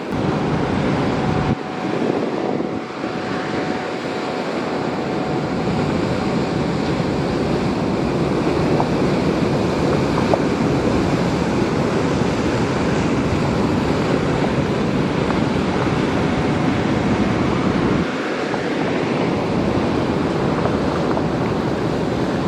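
Steady rush of surf and water with wind buffeting the microphone.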